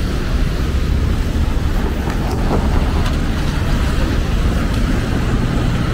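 Downtown street traffic: cars passing on rain-wet pavement, a steady low rumble with an even hiss of tyres over it.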